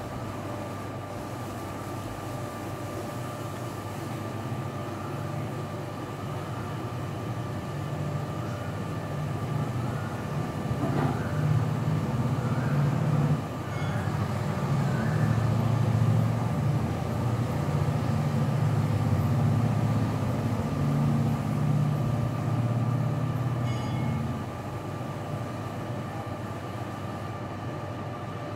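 Low mechanical rumble with a steady high hum over it. The rumble grows louder through the middle stretch, dips briefly once, then eases back.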